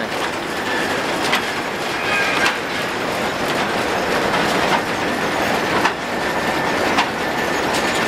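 Belt drives, pulleys and shafting of a working steam-powered sawmill running: a steady loud machinery clatter with irregular sharp knocks and clanks, and a brief faint squeal about two seconds in.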